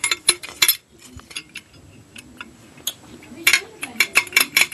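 Metal clicks and clinks from a 1940s Westinghouse brass elevator push-button fixture being handled: a quick cluster of sharp clicks at the start, a quieter stretch, then a rapid run of clicks near the end.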